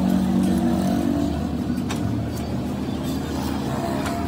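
Engine of a nearby vehicle running steadily, a little louder in the first second or so, with a few light clicks.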